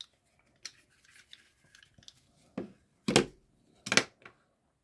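A hard plastic Kydex knife sheath being handled with light clicks and rustles, then a few short knocks as it is set down on a stone countertop, about two and a half to four seconds in.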